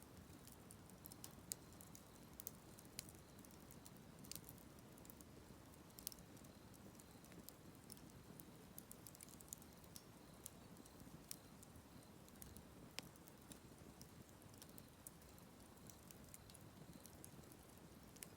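Faint wood fire crackling in a campfire stand: a low, steady burning noise with irregular sharp pops and snaps.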